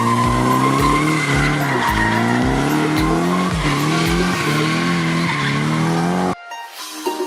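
Music with a steady thumping beat about twice a second under gliding tones, cutting off abruptly about six seconds in and replaced by quieter, different music.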